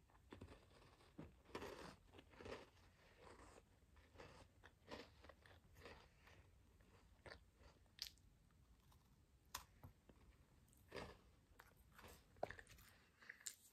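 Faint crunching and chewing of a brown biscuit, with irregular crisp bites and crunches close to the microphone.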